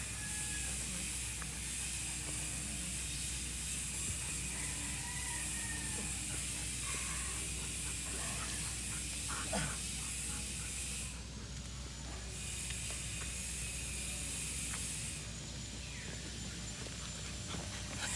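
Outdoor ambience: a steady high-pitched hiss that drops out briefly twice, over a low hum, with a few faint chirps and light taps.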